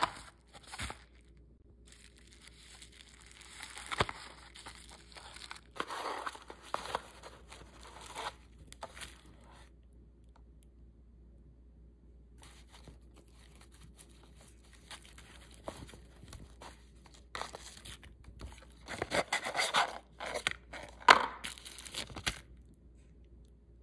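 Bubble wrap and plastic packaging crinkling and rustling as it is unwrapped by hand, in irregular bursts with a lull about halfway through. It is loudest near the end, with one sharp crackle.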